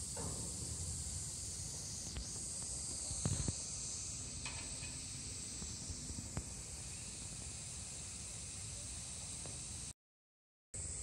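Steady high-pitched hiss of a summer insect chorus, with a short falling sound at the very start and a few faint knocks about three seconds in. The sound cuts out completely for under a second near the end.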